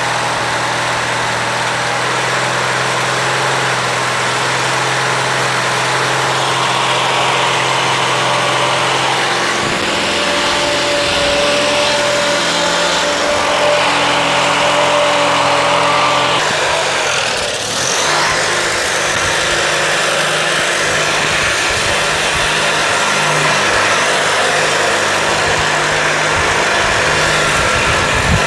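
Briggs & Stratton 19.5 hp opposed-twin engine of a Craftsman LT1000 lawn tractor running steadily while the tractor is ridden. Its note shifts a couple of times, about ten seconds in and again about sixteen seconds in.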